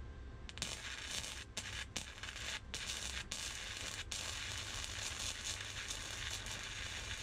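Wire-feed welder arc crackling and hissing as a small metal tab is tack-welded onto a headlight bracket. The arc strikes about half a second in and breaks off briefly a few times in the first four seconds, then runs on steadily.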